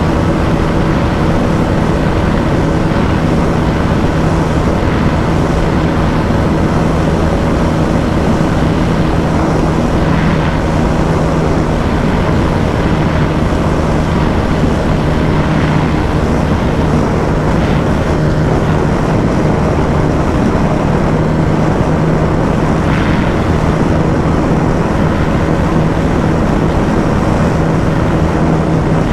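Bajaj Dominar 250's single-cylinder engine running flat out in top gear at a steady, unchanging pitch during a top-speed run, under a dense rush of wind and road noise.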